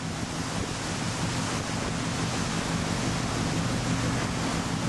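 Steady wind and sea rush on an open-deck microphone, an even hiss with a low steady hum underneath.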